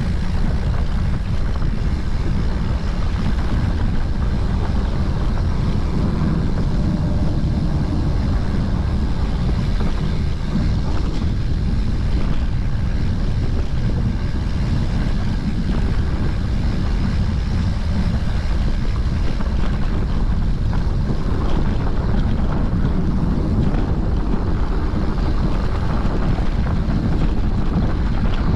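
Wind rushing over a GoPro action camera's microphone as a mountain bike rolls down a dirt forest track, a steady low rumble of wind and tyres on the rough ground.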